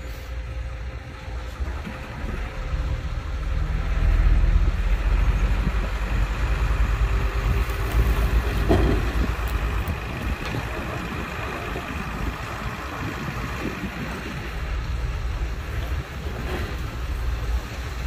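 Heavy diesel earthmoving machinery running with a deep engine rumble that grows louder about four seconds in and eases off after about ten seconds.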